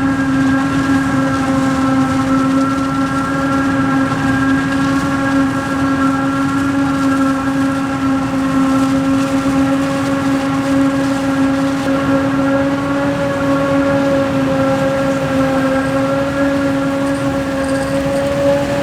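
A steady motor whine holding one pitch, with only a slight waver, over a low mechanical rumble.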